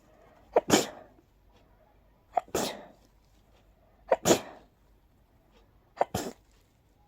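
A person sneezing four times in a row, one every couple of seconds. Each is a sharp catch followed by a longer, wet, spraying burst. These are hay-fever sneezes set off by pollen.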